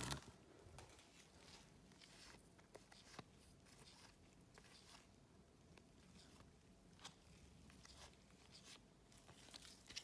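Near silence with faint, scattered soft ticks and rustles of trading cards and pack wrappers being handled.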